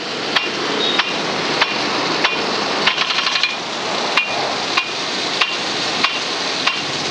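Rain gun sprinkler running: its swing arm strikes the water jet with sharp ticks about one and a half times a second, over the steady hiss of spray. There is a quick run of rapid ticks about three seconds in.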